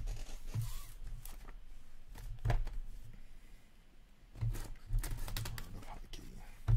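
Trading cards and their plastic wrapping being handled on a tabletop: crinkling and rustling with scattered clicks and several soft low knocks.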